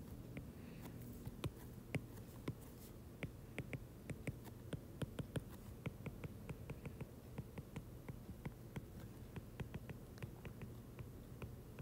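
Stylus tip tapping and clicking on a tablet's glass screen while handwriting, a faint, irregular run of light ticks, several a second, over a low steady hum.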